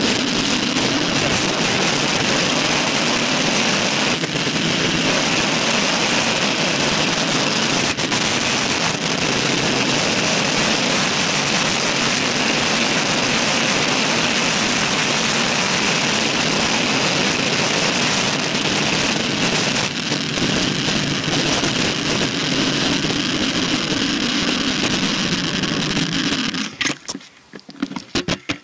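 Wind rushing over the microphone of a handlebar-mounted camera on a road bike ridden at speed, a loud steady rush. Near the end it breaks up into a few short gusts and dies away as the bike slows.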